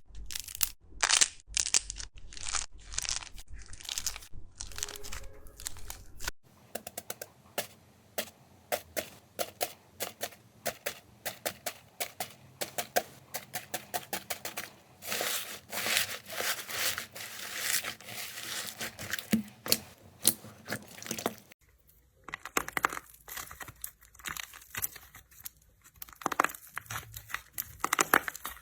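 Slime being pressed, squeezed and stretched by hand, giving a dense run of sharp crackles and pops. The sound changes abruptly twice, about six seconds in and again about twenty-two seconds in, as one clip gives way to the next.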